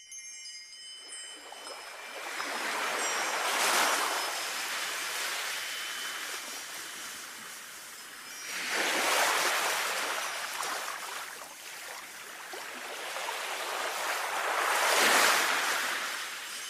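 Sea waves washing in on a shore in three slow swells, about six seconds apart. Wind chimes ring lightly over them, most clearly near the start.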